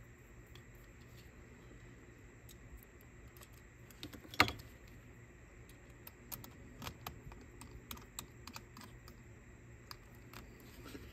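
Faint, scattered light clicks and ticks of tiny screws and a precision screwdriver being handled and driven into a cassette Walkman's small casing. One sharper click comes about four seconds in, and a run of light clicks follows a couple of seconds later.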